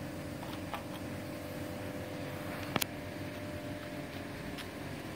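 Faint steady background hum with a thin steady tone, and a sharp double click a little under three seconds in.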